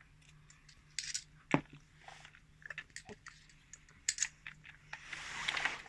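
Scattered small clicks and knocks of a plastic remote-control toy car and a screwdriver being handled at its battery cover, with a soft rustling near the end.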